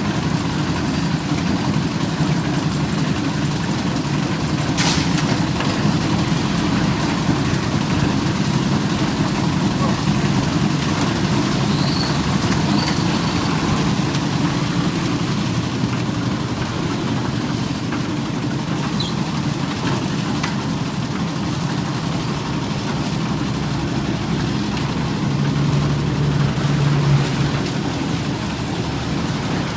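Old diesel engine running steadily while driving a concrete mixer. There is a sharp click about five seconds in and a brief louder hum near the end.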